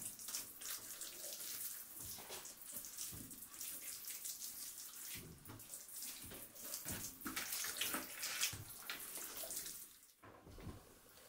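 Hands rubbing oil and spices into the skin of a raw turkey: a run of soft, irregular, wet-sounding rubbing and squishing strokes.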